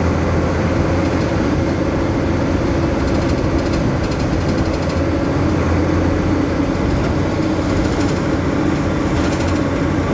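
A moving road vehicle's engine drones steadily, with a faint high rattle about three to five seconds in and again near the end.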